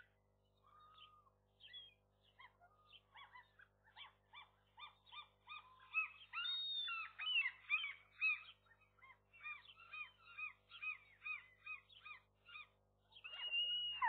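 Common gulls calling: a long run of short call notes, each rising then falling in pitch, several a second, growing louder about six seconds in.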